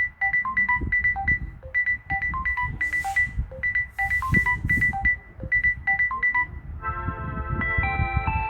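Samsung Galaxy Tab A11 ringtones from its Galaxy set playing. First comes a quick, repeating figure of short, high plucked notes. About seven seconds in, it gives way to a different ringtone of held, chiming synth notes.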